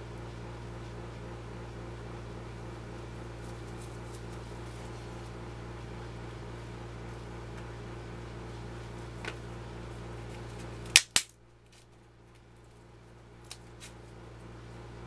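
A steady electrical hum, then two sharp, loud clicks about a fifth of a second apart about eleven seconds in, after which the hum cuts out. A few lighter clicks follow.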